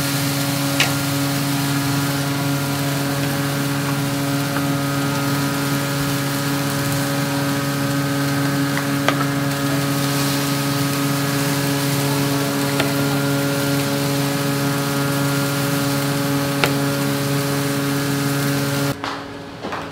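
Steaks sizzling on a flame grill under a steady motor hum, likely a kitchen fan or blower, with a few light clicks from tongs or a basting brush. The whole sound cuts off abruptly about a second before the end.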